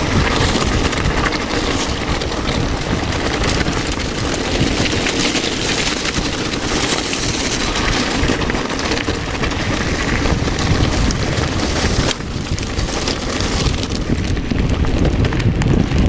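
Wind buffeting an action camera's microphone as a mountain bike descends fast, with its tyres running over loose gravel and a constant rattle from the rough trail.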